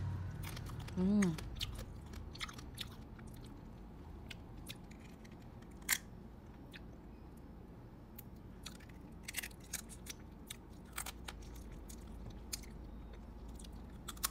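Close-up eating of boiled ba khía (small marsh crabs): chewing and biting on the crab legs, with sharp cracks of shell scattered throughout. A short hummed vocal sound comes about a second in.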